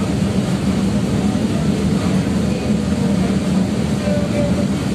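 Interior noise of a Tatra KT3UA tram running at speed: a steady rumble from the running gear.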